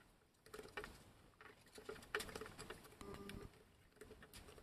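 Faint, scattered scrapes and light taps of a table knife spreading peanut butter over crisp rice cakes.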